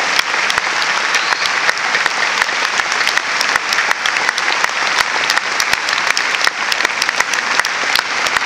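Large crowd applauding: a dense, steady clatter of many hands clapping.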